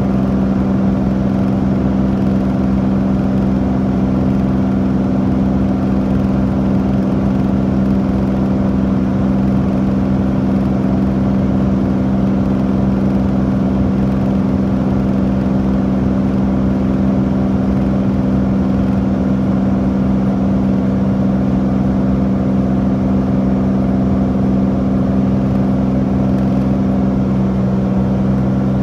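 Beechcraft Bonanza A36's six-cylinder piston engine and three-blade propeller droning steadily, heard from inside the cabin, with several held low tones.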